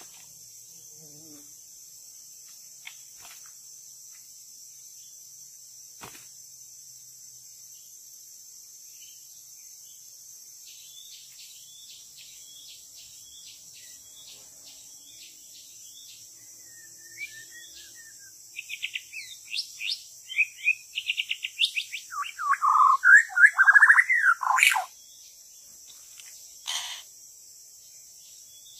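White-rumped shama song over a steady high buzz of insects. Faint repeated chirps come first, then about two-thirds of the way in a loud, rapid, varied song of quick repeated notes and lower warbled phrases that stops abruptly, followed by one short call.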